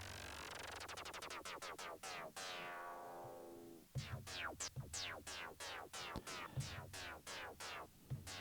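Roland SP-404 mk2 sampler playing synthetic sounds through its effects: a stream of falling-pitch sweeps over low thumps. A dense cascade fades out about three and a half seconds in, then quicker separate falling sweeps follow, about three a second.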